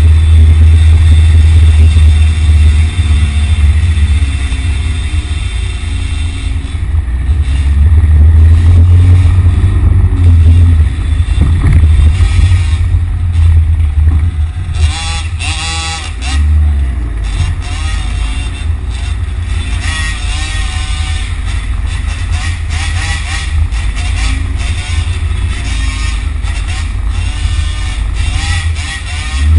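Loud, steady low rumble of road vehicles in street traffic, with engines passing and changing pitch around the middle.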